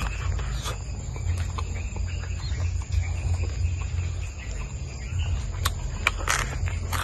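Close-up eating sounds: chewing and lip smacks over grilled food from a bamboo skewer, with a few short sharp clicks near the end, over a steady low rumble.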